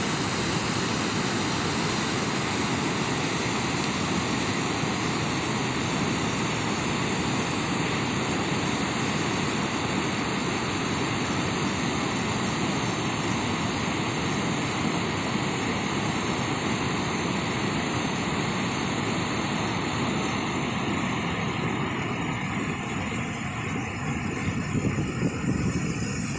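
Floodwater pouring over a stepped rock waterfall: a loud, steady rush of water. Near the end the high hiss thins as the sound shifts to the rapids of the swollen creek.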